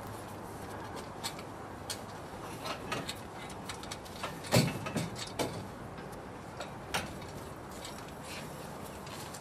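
Scattered knocks and clunks as a metal outrigger arm is pushed into its fitting on a catamaran hull, the loudest clunk about halfway through, over a steady low hiss.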